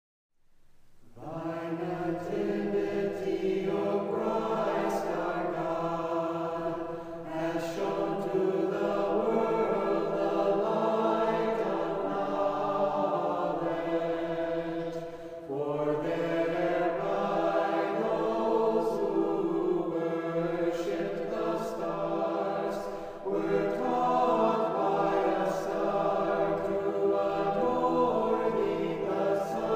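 Choir singing a slow chant in long, held chords. It fades in from silence about a second in, with brief breaths between phrases.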